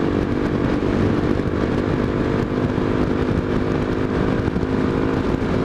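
Honda XRE 300's single-cylinder engine running steadily at cruising speed, with constant wind noise over it.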